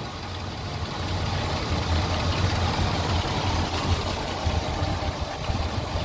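1963 Pontiac Star Chief's 389 V8 with a two-barrel carburettor idling steadily with a low, even rumble, running smoothly, "like a top".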